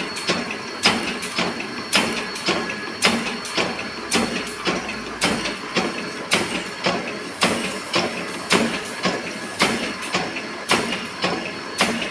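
Metal shaping machine running, its ram stroking back and forth as it cuts a workpiece held in the vise. The result is a steady rhythm of metallic clacks, a louder one about every two seconds with lighter clicks in between.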